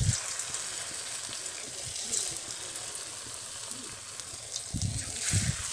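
Batter-coated potato pieces frying in hot oil in a kadai: a steady sizzle, with a few dull low knocks at the start and again near the end.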